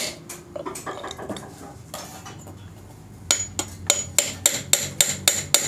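Hammer striking a chisel against a steel motorcycle muffler to break a glued slip-on joint: sharp ringing metal-on-metal blows. A few scattered light knocks come first, then steady blows at about three to four a second from about three seconds in.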